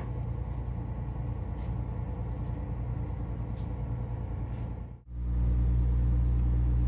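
Small tanker's diesel engine running steadily, heard from aboard as a low, even hum. After a cut about five seconds in, the drone is louder and steadier.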